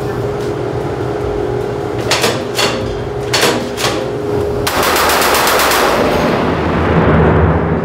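Belt-fed machine gun test-firing in full-auto: a few short bursts about two to four seconds in, then one longer rapid burst near the middle, followed by a lingering reverberant wash.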